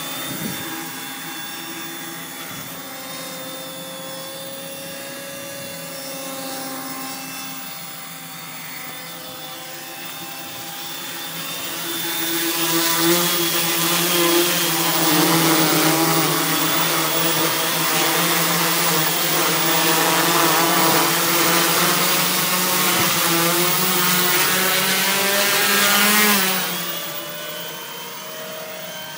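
Small quadcopter's four brushless motors and propellers hovering in position hold: a steady whine of several tones. From about twelve seconds in it gets louder, with the rushing hiss of propeller wash on the microphone as the drone is close and the tones wavering, then it drops back a little past twenty-six seconds.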